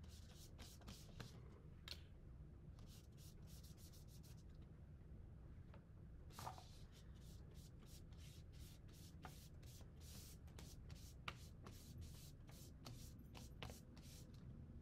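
A paintbrush brushing paint onto a paper plate: faint, quick, irregular scratchy strokes that come in clusters.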